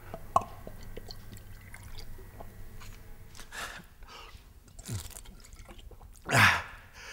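Men swigging from a glass bottle in turn: a sharp click about half a second in, then faint swallowing and liquid sounds, and a loud breathy exhale about six seconds in.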